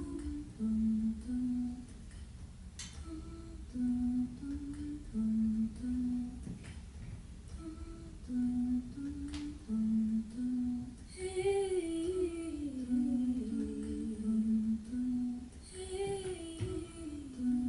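A voice humming a short, repeating tune of low, stepped notes. Twice in the second half it opens into a louder sung phrase that falls in pitch. A few soft knocks sound between the notes.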